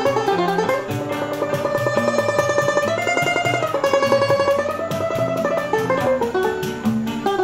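Choro played on banjo with acoustic guitar accompaniment. The banjo picks a melody in a fast tremolo on held notes through the middle of the passage, stepping up to a higher note and back down.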